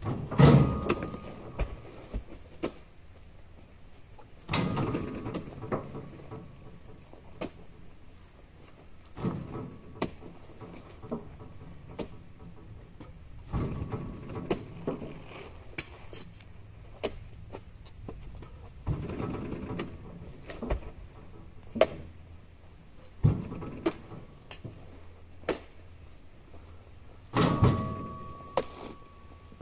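Oil palm fruit bunches being loaded by hand, a heavy clattering thump with a creak about every four to five seconds over a low steady hum.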